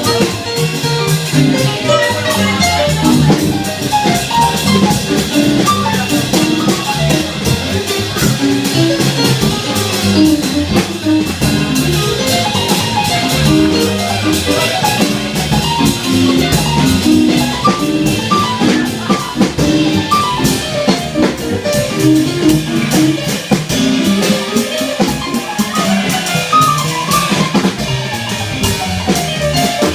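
Jazz quartet playing live: quick runs of notes over a drum kit with steady cymbal.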